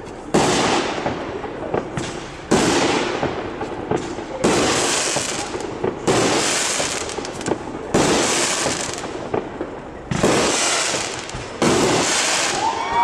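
Aerial firework shells bursting one after another, seven sharp bangs about two seconds apart, each trailing off in a fading hiss.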